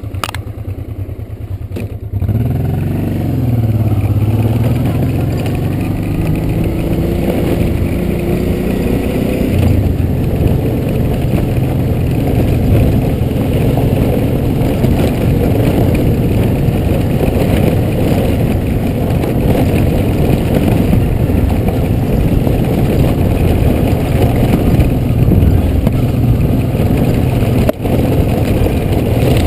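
Honda Transalp's V-twin engine running steadily, then pulling away about two seconds in with the pitch rising as it accelerates. It keeps running under load on a rough gravel track for the rest of the time.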